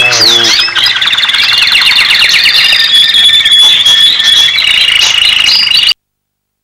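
Electronic comedy sound effect from a film's background score: high swooping whistle-like chirps give way to a rapid, high-pitched warbling trill. It cuts off abruptly about six seconds in.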